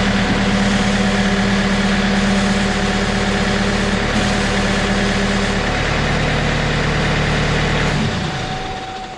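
John Deere 110 backhoe loader's diesel engine running steadily while the three-point hitch hydraulics raise the finish mower; its note shifts a little around six seconds in, and about eight seconds in the sound stops and dies away.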